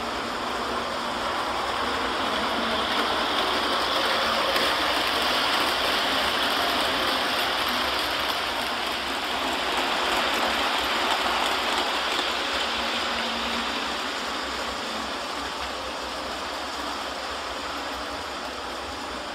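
Model train running on the layout's track: a steady rattling whir of wheels and motor that grows louder over the first few seconds and fades away in the second half as the train passes.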